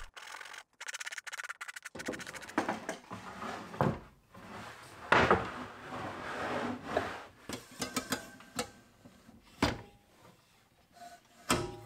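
Plywood panel handled and set into place on a workbench, and a miter saw swung on its turntable: scattered wooden knocks, scraping and light clicks, the loudest knock about five seconds in.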